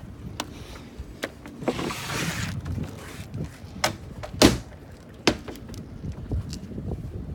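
A sailboat's sliding acrylic companionway hatch being pushed open along its track: a scraping slide with several clicks and knocks, the loudest knock about four and a half seconds in.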